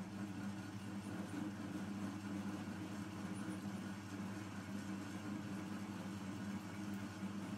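Metal lathe running steadily with a low, even hum from its motor and gearing while the tool cuts the end of a rusty steel tube.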